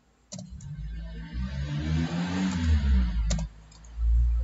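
A motor vehicle driving past: a low engine sound and tyre noise swell to a peak midway and fade away. A single keyboard click comes near the end.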